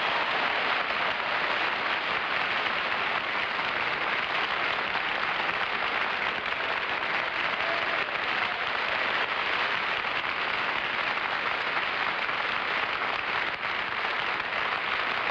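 Studio audience applauding in one long, steady burst.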